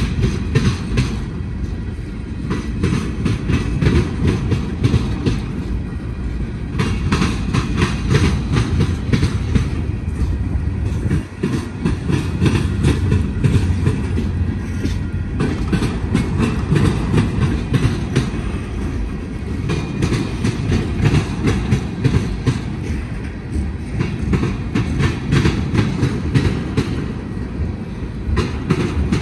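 Freight train of tank cars rolling past, a steady low rumble with rapid, continuous clicking of the wheels over the rail joints.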